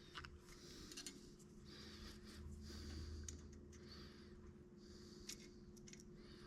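Faint hand-tool work: scattered light clicks and short scraping sounds, as from a screwdriver on metal parts, over a low steady hum.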